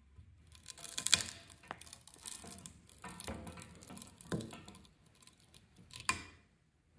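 Irregular scraping with sharp metal clicks at the exposed winding of an AC condenser fan motor, as the wire is checked to see whether it is solid copper or copper-coated aluminium. The sounds stop about a second before the end.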